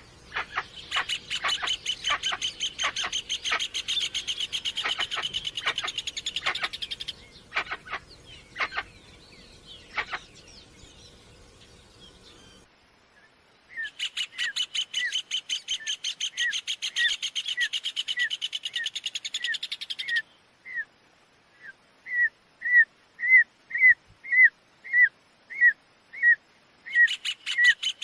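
Forest birds singing: fast, high, pulsing trills, and a string of short down-slurred whistled notes repeated about twice a second that grows louder in the second half.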